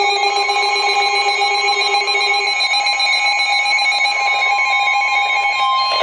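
Emergency Alert System attention tone: a loud, steady alarm made of several sustained tones sounding together. One of its lower tones drops out about two and a half seconds in.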